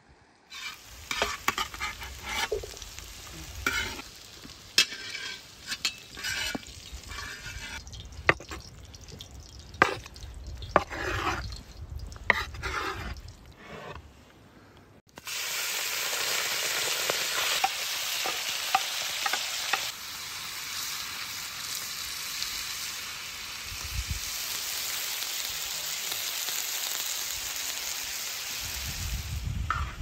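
Scattered knocks and wet slaps of chopped raw beef kidney pieces being handled in a wooden bowl, then, about halfway through, a sudden switch to steady loud sizzling as the kidney pieces fry in a large metal pan, easing slightly a few seconds later.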